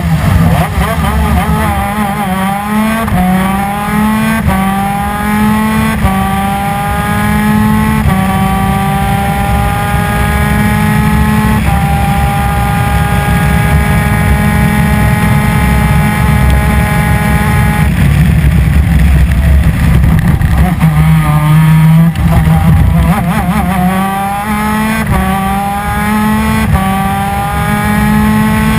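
A 250 cc two-stroke twin-cylinder PVP superkart engine at full throttle, its pitch climbing again and again through a string of quick gear changes, then holding high revs for about six seconds. Around two-thirds of the way through the revs drop off, then climb through the gears again in short steps.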